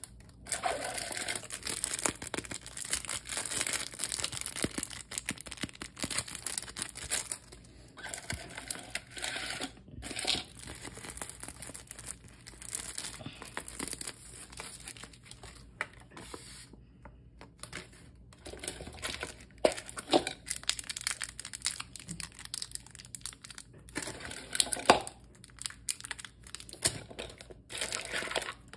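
Wrapping of a giant surprise egg being torn open and crumpled by hand, in repeated bouts of crackling with short pauses in between.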